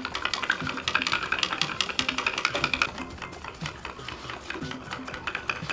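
Wooden spindle being spun against a wooden fireboard to start a friction fire, making a fast, irregular scratchy clicking, with faint background music.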